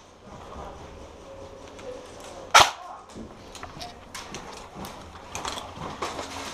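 A single sharp crack from an airsoft gun being fired, about two and a half seconds in. Fainter clicks and gear rustling follow.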